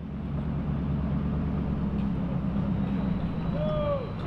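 Truck engine pulling a boat trailer up a slick ramp, rising in loudness at the start and then running steadily under load. Near the end, a man's short shout of "yo".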